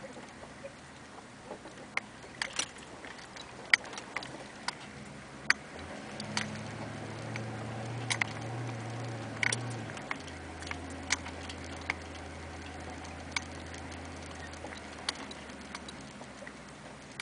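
Cab interior of a diesel Suburban crawling along a dirt trail: a low engine drone that picks up about six seconds in for a few seconds, then drops back. Irregular sharp ticks and taps, about one or two a second, are the loudest sounds throughout.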